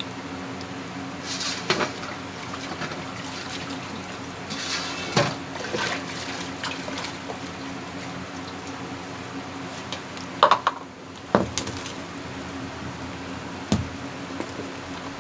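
Rolls frying in hot oil, a steady sizzle over a low hum, with a few sharp knocks of a utensil against the pan. The loudest knocks come as a pair about ten seconds in.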